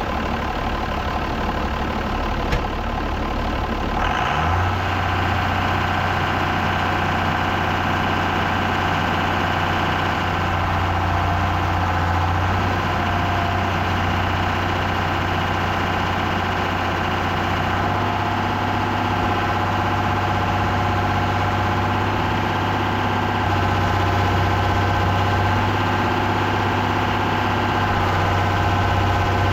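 Tractor diesel engine running steadily. About four seconds in, a deeper drone and a higher steady whine join it, as a load is engaged.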